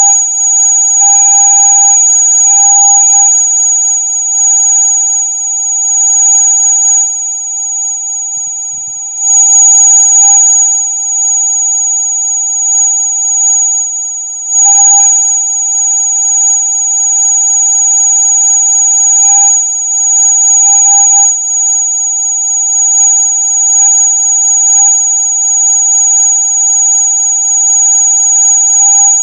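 Electronic rat-repellent sound: a loud, steady, high-pitched tone made of several held pitches at once, the highest being the strongest, wavering slightly in loudness.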